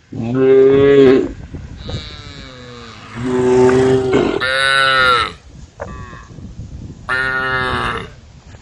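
Cows mooing several times: a loud moo at the start, a long one from about three to five seconds in, and another near the end, with fainter calls between.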